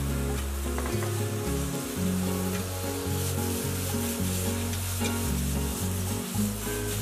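Tomatoes and scrambled egg sizzling in a stainless steel frying pan while a wooden spatula stirs and scrapes them, under background music with steady low notes.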